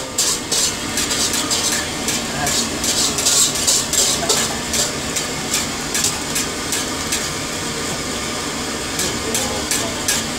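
Martabak frying in oil on a flat iron griddle pan, sizzling steadily, while a metal spatula clinks and scrapes against the pan in quick repeated strokes, thinning out in the middle and picking up again near the end.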